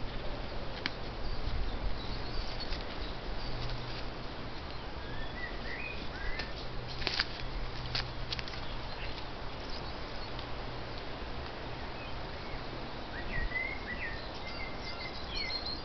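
Small birds chirping in short rising and falling calls, a few about five seconds in and a busier run near the end, over a steady hiss and a low hum. A few sharp clicks sound around seven to eight seconds in.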